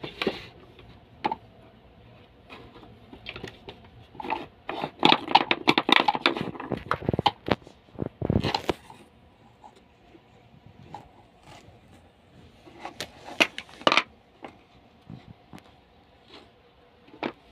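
Wooden beads clacking and scraping along the wire loops of a wooden activity cube's bead maze as a toddler pushes them, with knocks against the wooden cube. The sounds come in irregular bursts: a busy stretch in the middle with one heavier knock, then a few sharp clacks later.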